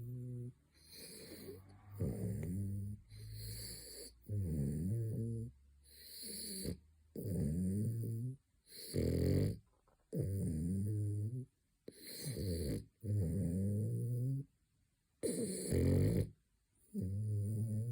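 French bulldog snoring in its sleep, one loud, pitched snore with each breath about every second and a half.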